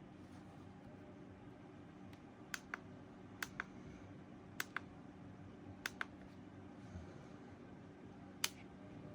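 A small battery-powered fan runs with a steady low hum, under a series of sharp clicks: four quick double clicks a second or so apart, then a single click near the end.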